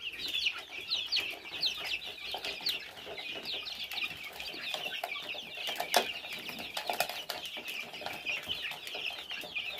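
A flock of young chicks peeping nonstop, many short high peeps falling in pitch and overlapping, with one sharp click about six seconds in.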